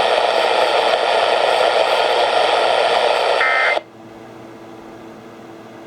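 AM radio receiver hiss after the spoken warning, with a brief electronic beep about three and a half seconds in; then the hiss cuts off abruptly, leaving a faint steady hum.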